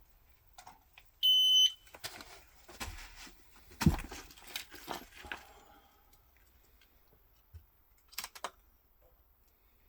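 Shot timer start beep: a loud, steady, high electronic tone lasting about half a second, about a second in. Rustling and sharp knocks follow as the shooter handles the rifle and gear, the loudest about four seconds in, with a few clicks near the end.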